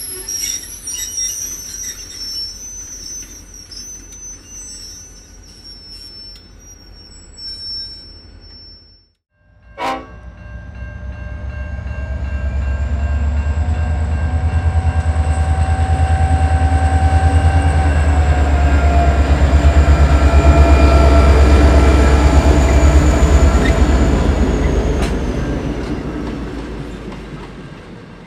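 Train wheels squealing on the rails in high steady squeals over clicking wheels, then after a brief break, diesel locomotives C501 and N451 approaching and passing. Their deep pulsing engine rumble builds, peaks and fades away, with steady tones that drop in pitch as they go by.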